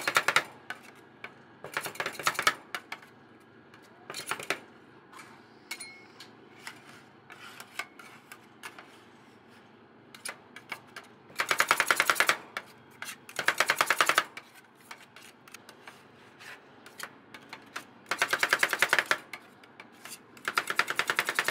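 Metal spatulas rapidly chopping on a cold steel plate, working the rolled ice cream base: a fast rattle of clicks in bursts of about a second, with softer scattered taps between.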